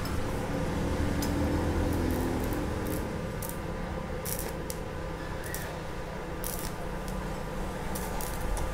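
A 2.5 mm stick-welding rod scratched and tapped against rusty steel on an inverter welder set to 120 amps, giving scattered short crackles but no steady arc: the rod will not strike and melt, which the welder takes as the machine putting out less current than its setting. A low steady hum runs underneath.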